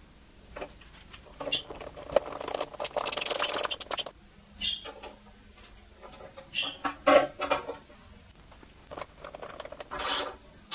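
Hand work on a 3D-printed plastic bracket: small metal nuts, screws and a screwdriver and hex key clicking, tapping and scraping as a screw is driven in. A longer scrape comes about two and a half seconds in.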